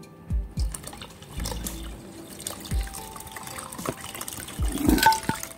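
Butterfly pea flower water trickling and splashing as it is poured through a metal mesh strainer into a rice cooker pot of rice and water.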